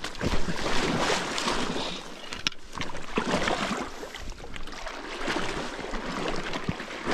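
Water sloshing and splashing in uneven surges, churned up by a large hooked brown trout being played close in.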